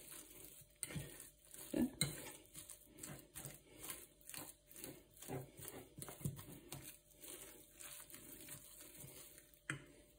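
Metal fork mashing and mixing boiled potato in a ceramic baking dish: faint, repeated squishing and scraping strokes, about two or three a second, with a sharper knock near the end.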